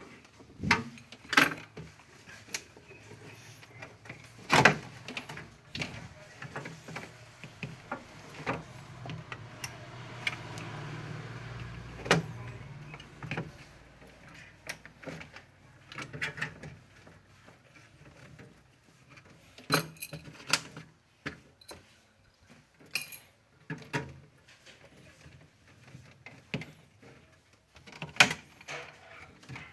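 Scattered sharp knocks and clattering as ice and parts are handled in a refrigerator freezer compartment during defrosting, with a brief low hum about ten seconds in.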